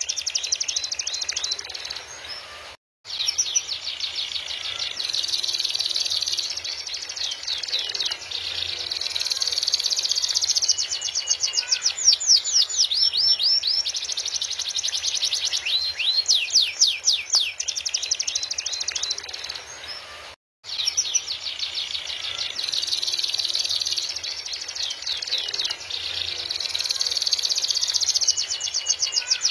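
Domestic canary singing a long, vigorous song of rapid trills and rolls of repeated high notes. The song cuts out briefly twice, about three seconds in and again about twenty seconds in.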